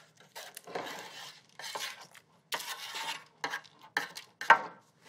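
Slotted wooden spatula scraping roasted squash cubes across a parchment-lined metal sheet pan into a soup pot: a series of short, irregular scrapes, with a sharper, louder stroke near the end.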